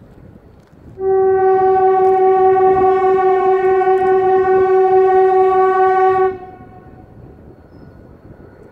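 Diesel locomotive's air horn sounding one long, loud, steady blast of about five seconds, starting about a second in and cutting off.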